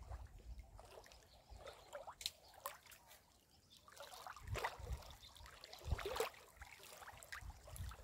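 Small wind-driven waves lapping faintly and irregularly against a muddy shoreline, in small splashes and trickles. A few brief low rumbles of wind on the microphone come in about halfway through.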